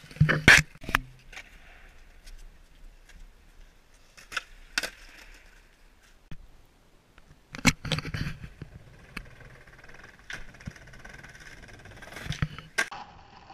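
Skateboard tricks: several sharp cracks and slaps of a skateboard hitting and clattering on pavement, separated by stretches of wheels rolling.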